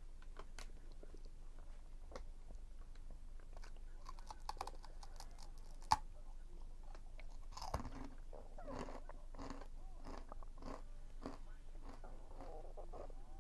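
Close-up chewing and crunching of food, a run of repeated bites and crunches with one sharp click about six seconds in.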